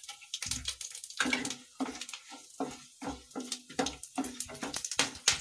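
Cumin seeds, bay leaves and dried red chillies sizzling in hot oil in a non-stick kadhai, with irregular crackles and pops, and a spatula stirring them through the oil.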